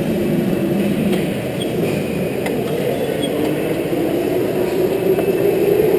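Electric go-kart motor whining steadily at low speed, with tyre and rolling noise from the kart, as it coasts into the pit lane.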